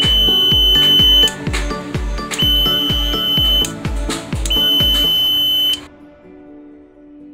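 Piezo buzzer of a BC547 transistor darkness-sensor circuit sounding a steady high-pitched tone in three long beeps of about a second each. This is the circuit's signal that the photoresistor is in darkness. Electronic background music with a steady beat plays under it and turns quieter near the end.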